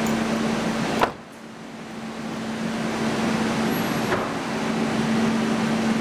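A car door shuts with a sharp thud about a second in, against a steady low hum and rumble. After the thud the rumble drops away, then slowly builds back.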